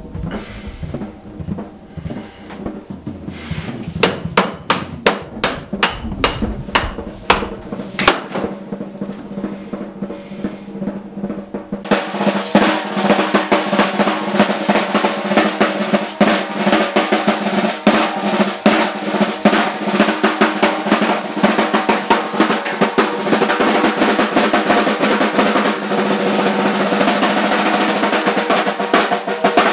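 A drum kit played with sticks. For about the first twelve seconds there are separate hits with bass-drum thumps, then a fast, continuous snare-drum roll that runs on to the end.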